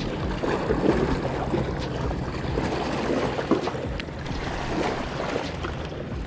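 Wind buffeting the microphone in a steady low rumble, with a few faint knocks.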